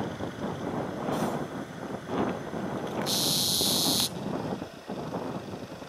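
Steady low outdoor rumble with no speech. About three seconds in, a high hiss starts and stops suddenly, lasting about a second.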